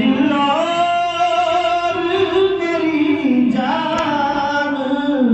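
A man's solo voice singing a naat, an Urdu devotional poem, in long held notes that slide slowly up and down, with a short break about three and a half seconds in.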